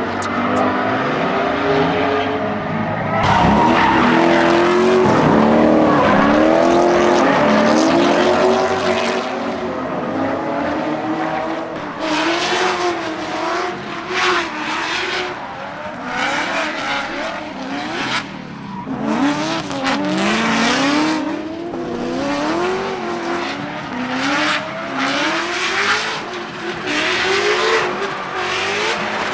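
C5 Corvette's V8 drifting, its revs rising and falling over and over as the driver works the throttle, with tyres squealing and skidding in repeated bursts.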